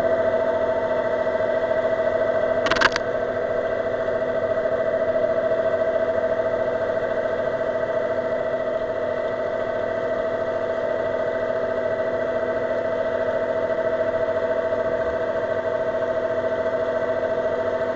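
Underwater scooter (diver propulsion vehicle) electric motor running with a steady, even whine heard underwater. A single sharp click about three seconds in.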